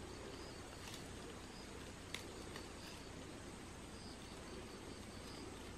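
Faint outdoor ambience: a high-pitched chirp repeated in short runs, over light rustling of ferns and brush being handled, with a few sharp clicks, the loudest about two seconds in.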